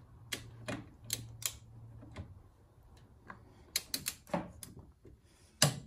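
Torque wrench ratcheting on the camber plate nuts of a BMW M2 strut tower as they are tightened to 24 newton meters: a string of sharp, irregular metallic clicks, the loudest one near the end.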